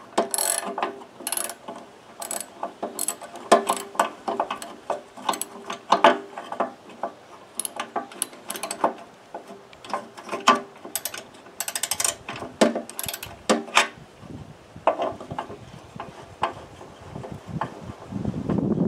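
Hand socket ratchet clicking in short, irregular runs as a nut on the lawnmower's wheel and handle bracket is backed off; the nut is breaking free fairly easily.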